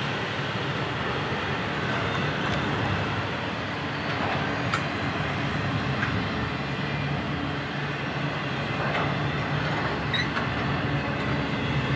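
Double-stack freight train rolling past: a steady rumble of railcar wheels on the rails under the low drone of diesel locomotives, with a couple of sharp clicks.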